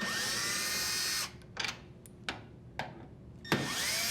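Cordless drill driver spinning out two screws, each a run of about a second with the motor whine rising as it spins up, and a few light clicks between them.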